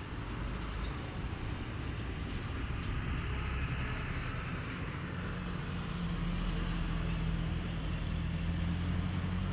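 Skoda Yeti's engine running at low revs as the SUV creeps down a steep steel ramp; its low hum grows stronger about halfway through.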